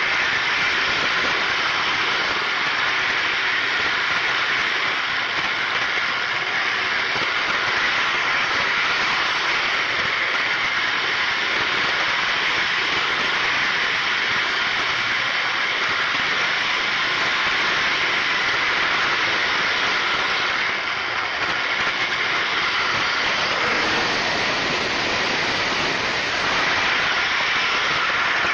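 Steady rolling noise of an O gauge model train's metal wheels running along the track, heard from on board the flatbed car that the locomotive is pushing.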